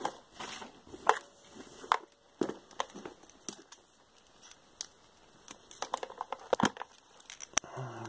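Handling noise: irregular clicks, taps and rustles of hands moving a camera and its attached wires and cables, with a quick cluster of clicks a little over halfway through.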